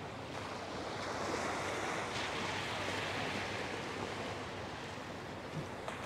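Gentle Gulf surf: small waves washing up onto the sand with a steady hiss that swells a little from about a second in and eases toward the end.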